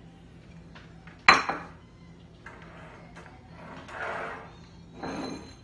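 Kitchen metalware clattering: one sharp, ringing metallic clank about a second in, then two softer scraping rustles as a wire cooling rack on a baking sheet is shifted on the counter.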